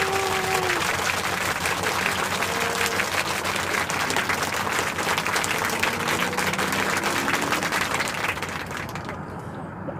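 Applause, a crowd clapping, that starts abruptly and cuts off about nine seconds in, over background music with sustained notes.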